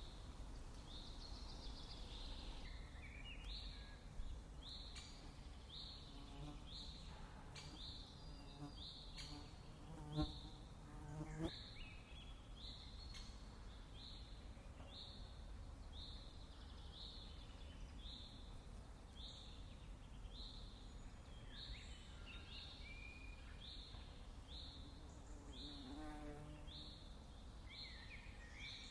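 Nature ambience: a short high chirp repeating about once a second, with scattered bird calls and a brief buzz twice, about ten and eleven seconds in.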